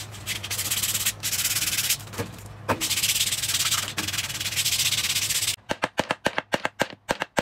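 A flat wooden elephant cutout sanded by hand with a sheet of sandpaper: back-and-forth scratching strokes with brief pauses. About two seconds before the end, a small hammer drives a small nail into the wood in a quick run of about a dozen light taps.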